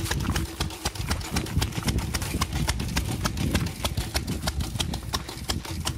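Small steam engine of a steam bicycle running under way, its exhaust beats coming as sharp, even ticks about five a second over a low rumble.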